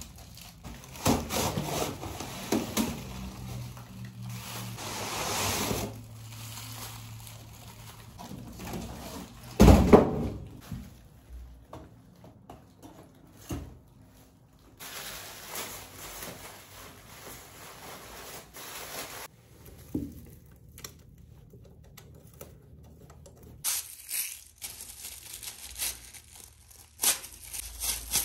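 Handling noises while a Christmas tree is set up: rustling, taps and knocks, with one loud thump about ten seconds in.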